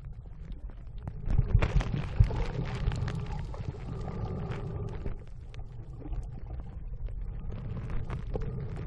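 Muffled underwater sound picked up by a phone filming while snorkeling: a low rumble with scattered clicks, and a louder stretch of rushing water noise from about a second and a half to three and a half seconds in.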